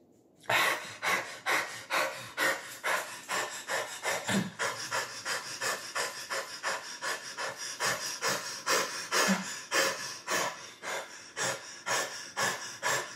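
A man panting hard through his open mouth, quick rasping breaths about two to three a second, starting after a short pause about half a second in. This is the laboured breathing of a spontaneous tension and trauma release (TRE), after the crying.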